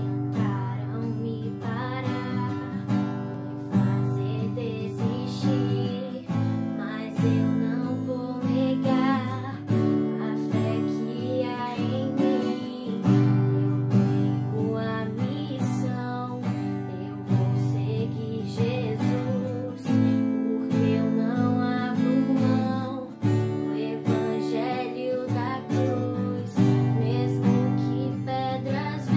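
Acoustic guitar strummed in chords while a young girl sings along.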